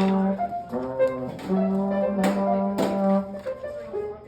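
Ensemble with brass playing held notes and chords, with two sharp accented strikes a little past the middle. The playing stops near the end.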